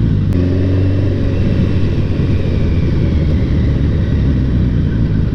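Kawasaki GTR 1000 inline-four motorcycle engine running under way, with road and wind noise, heard from a GoPro mounted on the moving bike. A steadier held engine note shows about half a second in and lasts about a second.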